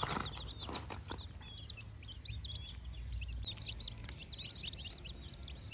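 Baby chicks peeping: a constant string of short high chirps, several a second, from the flock as they feed. A few sharp knocks in the first second.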